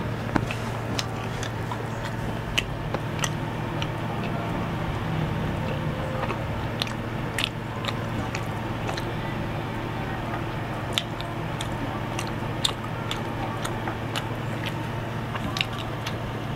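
Close-miked chewing of tough fried duck meat: wet mouth clicks and smacks at an irregular pace over a steady low hum.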